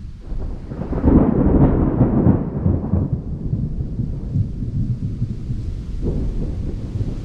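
Low, choppy rumbling of an approaching thunderstorm with gusting wind, swelling louder about a second in and easing back after about three seconds.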